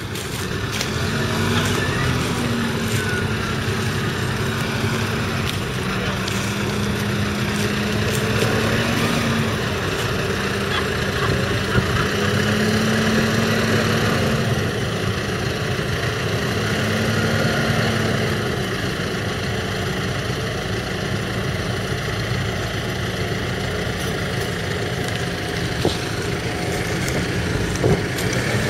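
The Kubota M7171's 6.1-litre four-cylinder diesel engine runs steadily, its revs lifting slightly and dropping back several times. A few faint clicks are heard over it.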